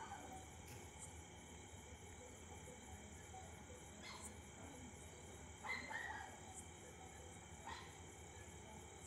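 Near silence: faint steady background noise, with a brief faint sound a little past halfway and a soft tick near the end.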